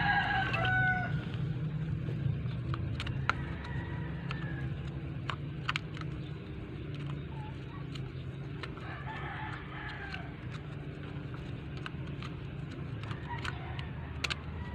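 Rooster crowing about four times in the background, the first crow, right at the start, loudest. Under it runs a steady low hum, with scattered small clicks from handling.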